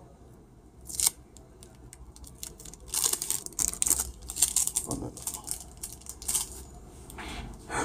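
Fingers handling and peeling a small piece of adhesive tape: one sharp click about a second in, then a few seconds of crackling clicks and rustles.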